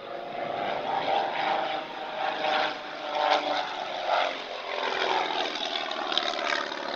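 Propeller aircraft engine running steadily, its pitch wavering up and down.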